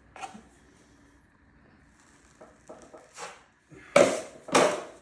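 A drywall knife scraping setting-type joint compound in short strokes: a few faint scrapes, then two loud ones about half a second apart near the end.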